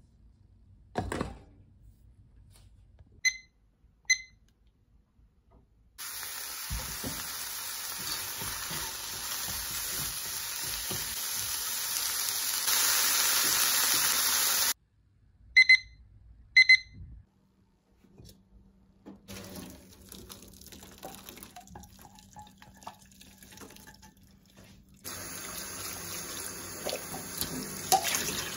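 A few knocks and two short electronic beeps, then a long steady sizzle of vegetables stir-frying in a frying pan. Two more short beeps follow, then quieter scraping and rustling. Near the end comes running tap water as cooked somen noodles are rinsed in a strainer.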